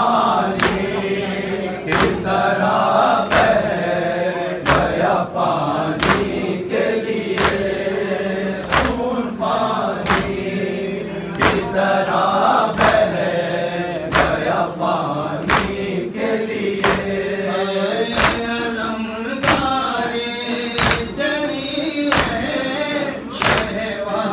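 Men chanting a noha together in a steady rhythm, kept in time by sharp hand slaps of matam (chest-beating), a little over one a second.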